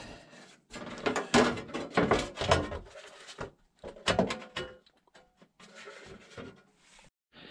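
A thin steel repair panel being shifted and pressed into place against the van's floor metal: irregular knocks and scrapes of sheet metal on metal.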